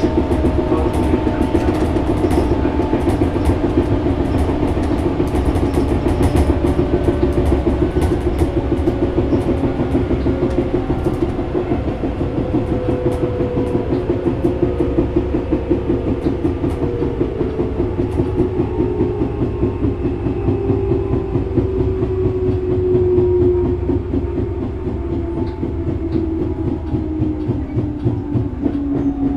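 Tobu 6050-series electric car running, heard from inside just behind the crew cab. The TM-63 traction motor and gear whine glides slowly down in pitch over the rumble and rhythmic clatter of the bogies on the rails. The loose doors rattle.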